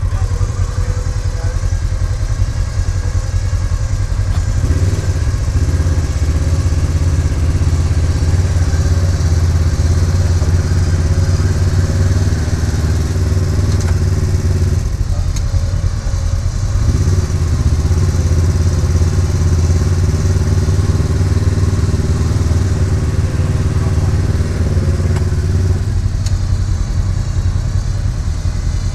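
Polaris RZR side-by-side engine idling while its winch hauls a stuck side-by-side out of mud on a synthetic rope. Twice, for about ten seconds each, a steady pitched whine comes in over the idle as the winch pulls under load, with a short pause between the pulls.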